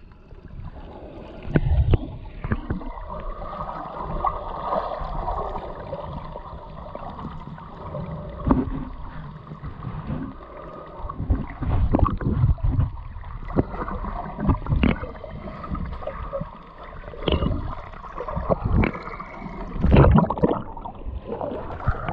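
Muffled water sloshing and gurgling around a camera held underwater while snorkelling, with irregular splashes and knocks.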